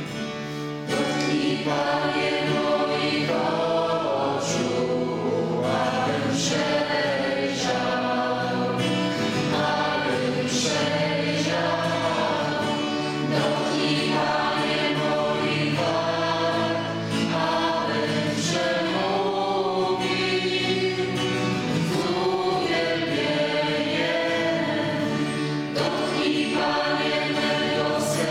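Voices singing a Christian worship song together, accompanied by strummed acoustic guitar.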